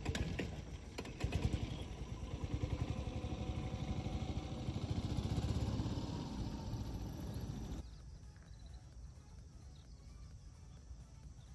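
Golf cart engine running close by: a low, pulsing chug that builds to its loudest about five seconds in and cuts off abruptly about eight seconds in, leaving only quiet outdoor air.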